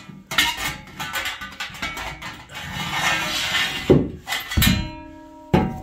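Metal solar-rack brackets and rails clinking and clanking as they are handled and set down, with two heavier knocks about four seconds in. A rail then rings on for about a second with a steady metallic tone.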